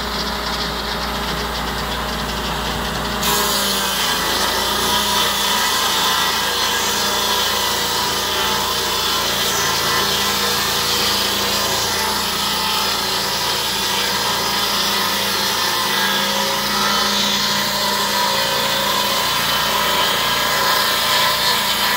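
Lucas Mill portable sawmill's petrol engine running its circular blade; about three seconds in it gets louder as the blade bites into the log, then holds a steady sawing sound while it rips along the length of the log.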